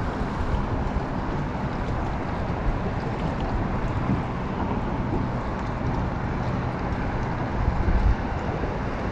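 Steady wind and water noise from a small boat on open water, with low wind rumble on the microphone.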